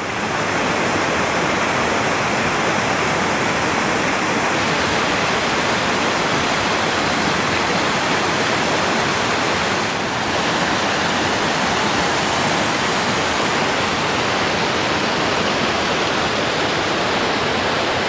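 Waterfall pouring down a rock gorge: a steady, loud rush of falling water, with a slight dip about ten seconds in.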